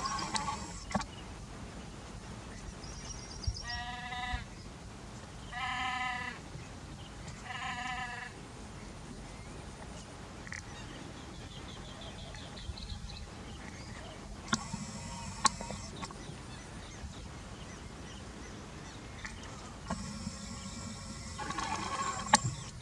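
Three drawn-out, bleat-like animal calls about two seconds apart, among scattered high bird chirps and a few clicks.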